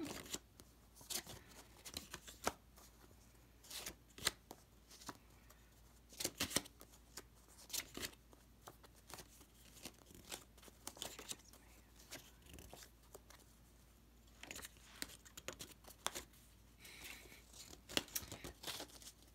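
Paper picture-and-word cards being leafed through, slid and set down on a cloth-covered surface: irregular soft rustles and light taps of card stock.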